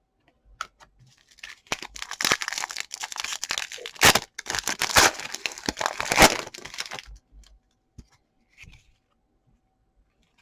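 A trading-card pack wrapper being torn open and crinkled by hand, a few seconds of ripping and crackling with several sharp louder snaps, then a few light clicks as the cards are handled.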